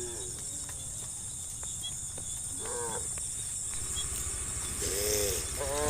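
Cows mooing in short calls, one a little before the middle and two in quick succession near the end, over the steady high chirring of crickets.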